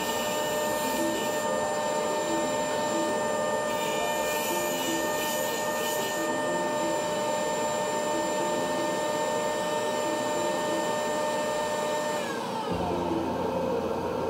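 Router in a router table running steadily with a high multi-tone whine, switched off about twelve seconds in and winding down to a stop. Background music comes in under the run-down near the end.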